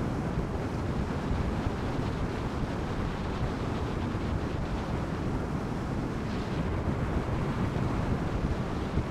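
Steady wind rush on the microphone while riding an electric motorcycle, a LiveWire S2 Del Mar, at road speed. There is no engine note, only the even rush of air.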